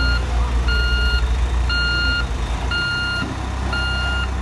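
Reversing alarm of a Volvo road roller beeping about once a second over the steady low running of its diesel engine as it backs out of a shipping container.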